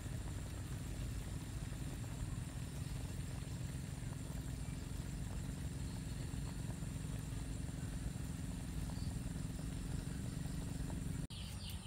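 A steady low rumble with a faint steady hum. Near the end it cuts off abruptly and high, repeated chirping takes over.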